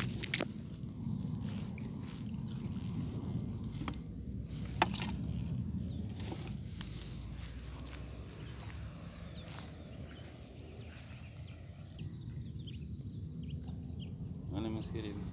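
Steady high chirring of insects, with a rapid pulsed trill over the first half, above a low rumble of the phone being handled. Two sharp knocks from the handling come about half a second and five seconds in.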